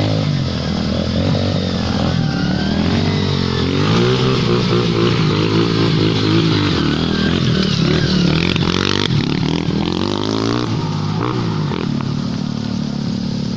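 Trail motorcycles' engines running and revving, their pitch rising and falling with the throttle, then holding steadier near the end.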